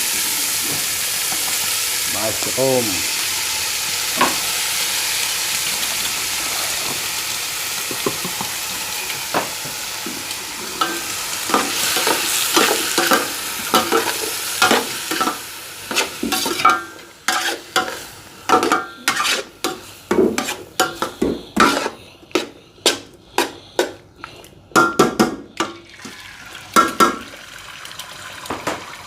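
Frozen mixed vegetables and canned mushrooms sizzling in hot oil in a frying pan. The hiss fades after about fifteen seconds, and the rest is a spatula scraping and knocking against the pan in quick, irregular strokes as the stir-fry is tossed.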